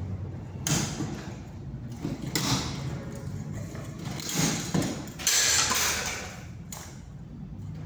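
Ceiling board being cut and scraped by hand around a pendent fire sprinkler head, in a few short rasping bursts, the longest about five seconds in, over a steady low hum.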